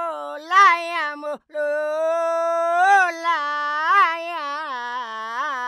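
A woman's voice singing a slow melody alone, holding long notes with wavering pitch ornaments, with a short break for breath about a second and a half in.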